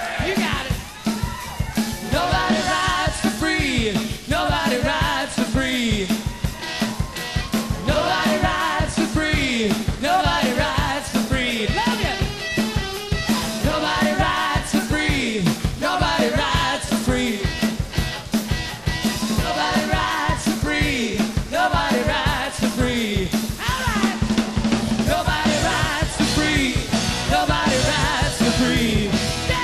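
A rock band playing live: a man singing over a driving drum-kit beat, with the band behind him.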